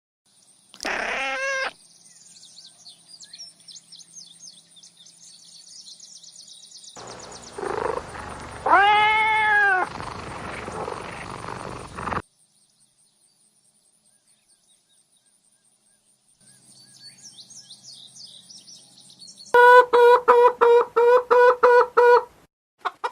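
A string of separate animal calls. The clearest is a long rising-and-falling cat meow about nine seconds in; a short call comes near the start, then after a few seconds of near silence a fast, loud run of repeated calls near the end.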